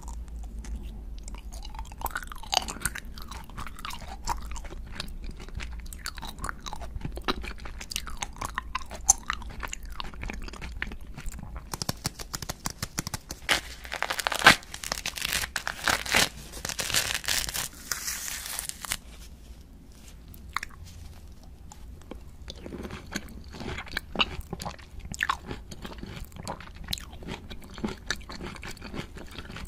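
Close-miked eating sounds. First come crunchy bites and chewing on a sugar-coated jelly lollipop. Around the middle there are several seconds of rough tearing as the peel is ripped off a large mandarin orange, and after that quieter clicky bites into the peeled segments.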